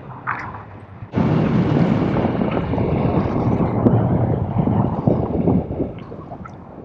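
Wind buffeting the camera's microphone as a paraglider flies, a dense rumbling noise that starts suddenly about a second in and eases off near the end.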